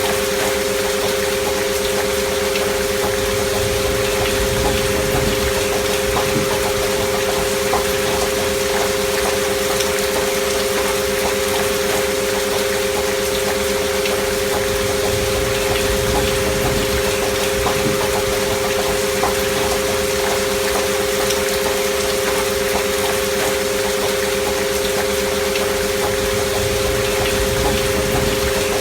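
Steady rain, a soft even hiss with faint pattering drops, with two steady pure tones held unchanging underneath it: the sine-tone layer of a healing-frequency track.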